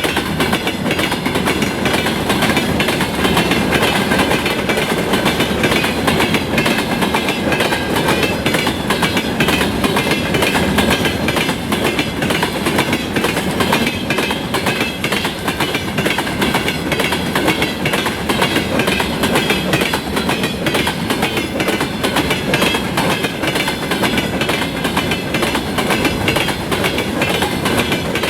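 Freight train wagons rolling past, their wheels knocking rhythmically over the rail joints.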